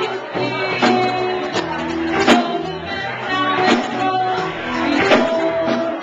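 Live band playing: electric guitars over a drum kit, with a drum hit about every three-quarters of a second keeping a steady beat.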